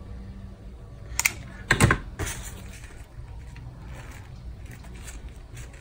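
Hot glue gun work on a ribbon bow: a couple of sharp knocks about one and two seconds in, the second the loudest, then faint rustling of grosgrain ribbon as the glued halves are pressed together by hand.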